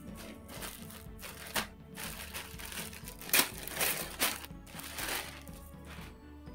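Clear plastic poly bag crinkling in a series of short bursts as a folded T-shirt is pulled out of it, over background music.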